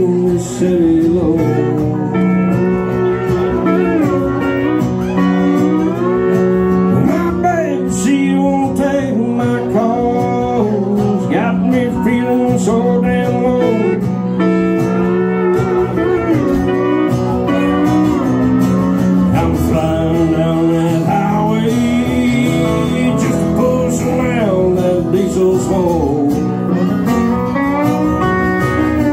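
Live country music: a pedal steel guitar playing long notes that slide up and down in pitch, over a strummed acoustic guitar.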